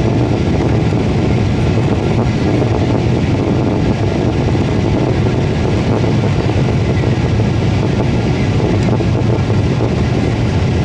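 Wind buffeting the microphone: a loud, steady, low rumble that flutters.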